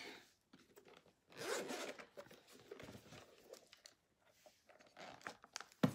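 Zipper on a soft black camera carrying case being unzipped in a few rasping pulls, the longest about a second and a half in, with a sharp click just before the end.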